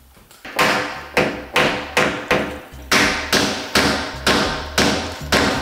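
Background music with a steady, fast percussive beat, about two to three hits a second over a low bass, coming in about half a second in.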